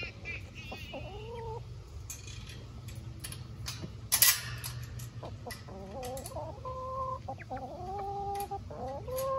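Hens making drawn-out, rising-then-level calls, once early on and then several in a row through the second half. Between them come light clicks and one sharp metallic clink about four seconds in, from a nut and bolt being fitted through the lock hole of a metal coop-run door.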